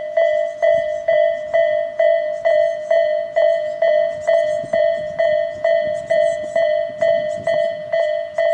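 Japanese railway level-crossing electronic warning alarm of the 'Isesaki' tone type, ringing in evenly repeated bell-like strikes about two and a half times a second. Its sound is slightly out of step.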